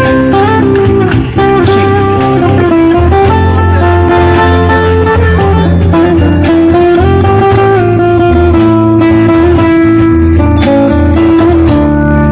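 Live street-band music: guitars playing a melodic line of held notes over a cajon beat.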